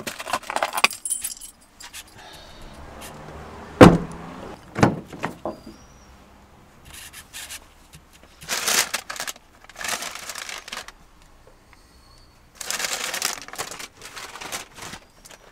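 Car keys jangling while belongings are gathered up in a car, with bursts of rustling and handling noise. One heavy thump about four seconds in is the loudest sound.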